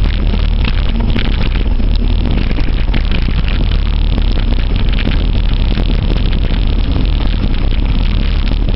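Wind buffeting the microphone of a camera riding along on a mountain bike, with steady low rumble, and many small clicks and rattles of the bike running over a rough trail.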